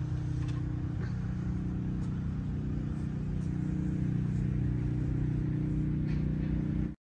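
A steady low mechanical hum, like a motor or engine running, with a few faint ticks above it.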